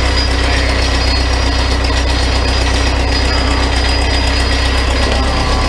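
Farmall 450 diesel tractor's four-cylinder engine running steadily, close up, warm after a long run.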